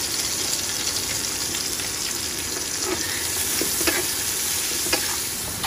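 Sliced onions and chillies sizzling steadily in hot mustard oil in a pan as they fry toward golden brown, with a few light taps in the second half.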